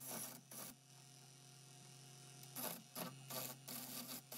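Delta Midi Lathe running with a steady low hum. A gouge cuts the spinning glued-up wood blank in short scraping bursts, coming several times a second near the end.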